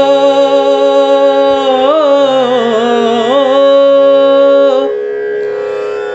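Indian light-classical (thumri-style) music over a steady tanpura drone, with an ornamented melody line that wavers up and down between sung lines before the music drops quieter near the end.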